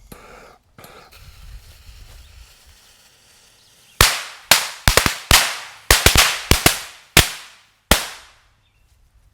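A pack of Mega Banger firecrackers going off: about fourteen sharp bangs in quick, irregular succession, starting about four seconds in and lasting about four seconds, each with a short echoing tail.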